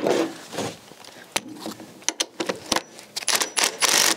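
Metal hand tools clinking and clanking in a car's engine bay as sockets and a wrench are fitted to an engine mount bolt: a string of sharp, irregular clicks, some with a brief metallic ring.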